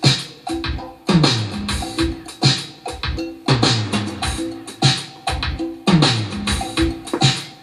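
Music with a heavy drum beat, played from a vinyl record on a Pioneer PL-630 quartz turntable and heard through loudspeakers.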